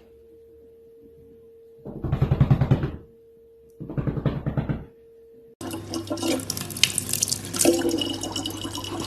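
Two loud sounds, each about a second long, then from about two-thirds of the way in, water running steadily from a tap.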